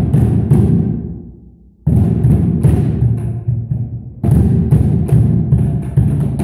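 Homemade tyre drums, stacks of old tyres with covered tops, struck with plastic tubes: deep booming hits in short runs. The playing dies away about a second in, starts again near the 2-second mark, and turns into a steady run of quick hits from about 4 seconds on.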